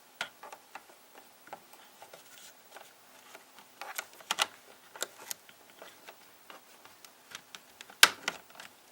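Scattered plastic clicks and taps from handling a wall thermostat and its battery compartment, with a louder click about eight seconds in.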